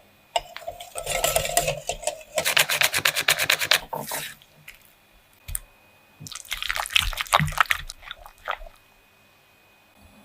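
Wet kitchen sounds of cake-making: something liquid being stirred and worked in a bowl, including a fast run of about a dozen strokes a second in the middle, then scattered wet clicks.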